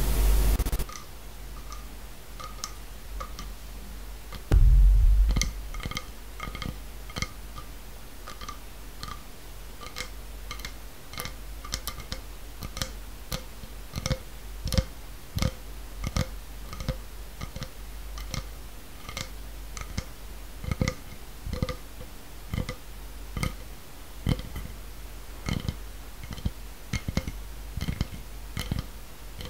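Close-miked wet mouth clicks and pops, irregular, one or two a second, each with a short ringing pitch. A hiss cuts off just under a second in, and a heavy low thump comes about four and a half seconds in.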